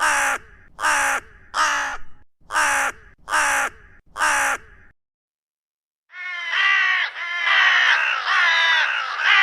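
Crow cawing: six harsh caws in two sets of three, a second of silence, then a continuous run of overlapping caws from several crows.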